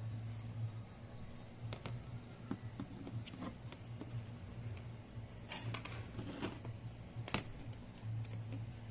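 Scattered light clicks, taps and scrapes of hands working the plastic back case of a Fluke 1587 insulation multimeter as it is unlocked and opened, with one sharper click about seven seconds in.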